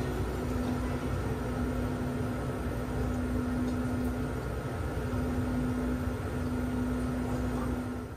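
Steady low mechanical hum and rumble, like a fan or appliance running, with a constant tone that drops out briefly about halfway through.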